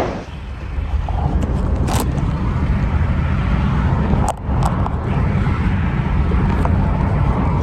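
Car cabin noise while driving: a steady low rumble of engine and road, with a few brief clicks.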